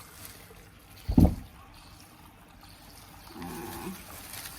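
Water trickling and splashing while raw offal is washed at a kitchen sink, with one heavy thump about a second in.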